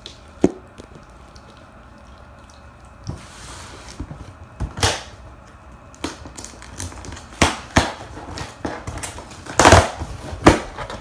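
A thump about half a second in, then a run of rustles, crinkles and sharp knocks, loudest near the end: a cardboard package being opened and its contents handled.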